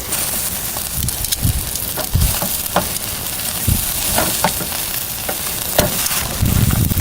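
Meat sizzling as it grills yakiniku-style over high heat, a steady hiss with scattered sharp pops and spatters of fat.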